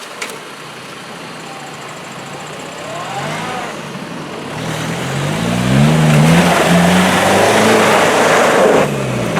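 Off-road 4x4 truck engine revving hard under load, its pitch climbing and dropping repeatedly as it works up rough ground. From about six seconds in a loud rushing noise joins it and cuts off sharply near the end, as the revs fall away.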